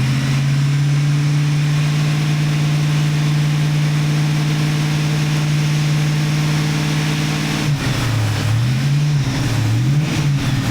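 V8 engine of a 1983 Oldsmobile Cutlass Hurst/Olds running at a steady speed, then revved up and let back down twice near the end.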